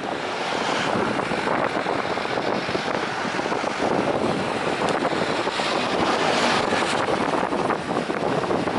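Jet airliner engines giving a loud, steady rushing roar with no clear pitch.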